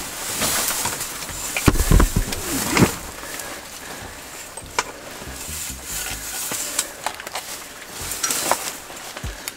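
Rustling and handling noise with scattered clicks and knocks, heaviest about two to three seconds in, where a few low thumps come through.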